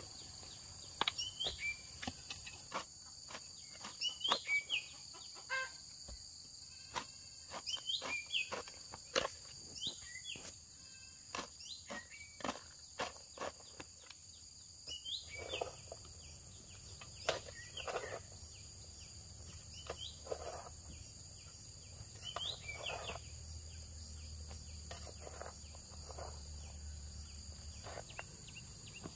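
Hand hoe chopping and scraping into dry clay soil in irregular strokes, over a steady high-pitched drone of insects.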